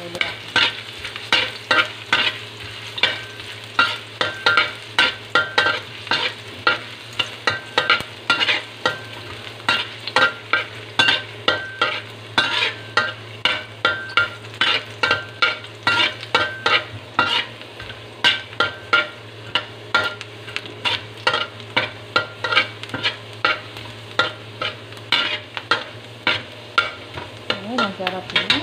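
Metal spoon scraping and tapping against a non-stick pan, about two strokes a second, while julienned ginger sizzles in hot oil.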